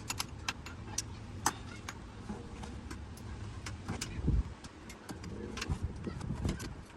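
Irregular sharp clicks and light clinks, as of hand tools and small parts being handled during engine work, over a low steady rumble, with a dull thump about four seconds in.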